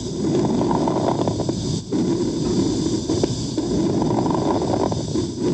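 Recorded stethoscope lung sounds of fine inspiratory crackles: breath noise rising and falling, with a short dip about two seconds in, and faint fine crackling through it. This is an abnormal added breath sound.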